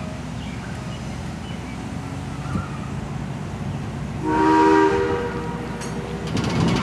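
Steam whistle of the JS-class 2-8-2 steam locomotive sounding one blast of about a second about four seconds in, a chord of several tones, over a steady low rumble.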